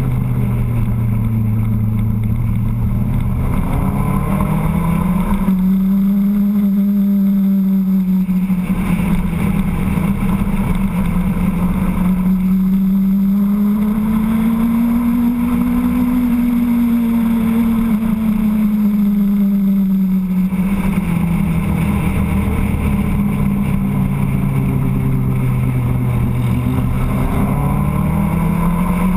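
Motorcycle engine running at road speed, heard from the rider's position. Its note climbs a few seconds in, holds, sinks past the middle and climbs again near the end as the throttle is worked through the bends.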